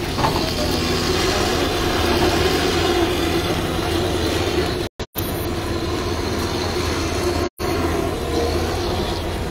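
Steady rumble of motor vehicle engines running nearby, mixed with outdoor noise. The sound cuts out sharply for split seconds twice around the middle and once again a little later.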